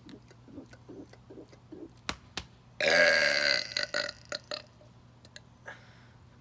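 A man's loud, deep burp about three seconds in, lasting under a second after air pumps to work it up. Before it comes a run of faint quick pulses, about three a second, and two sharp clicks.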